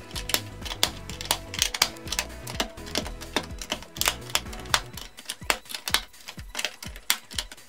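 LEGO plastic bricks and plates clicking as they are pressed onto one another, in quick irregular clicks a few each second, over background music.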